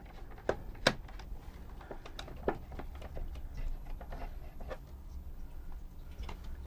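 Scattered small clicks and taps of plastic parts and screws being handled as a robot's plastic tray assembly is taken apart by hand, a few sharper knocks among them, over a low steady hum.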